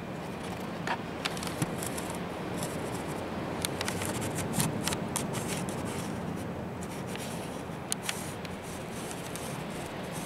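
Steady low outdoor background hum with scattered light clicks and ticks, most of them in the first two-thirds.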